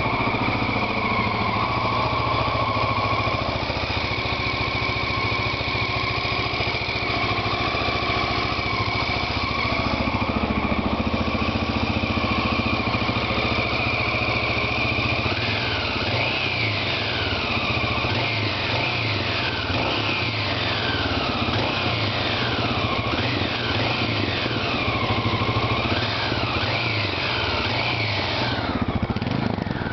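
Honda XL600R's air-cooled single-cylinder four-stroke engine running steadily just after a rebuild. Through the second half a higher sound sweeps up and down in pitch about once a second.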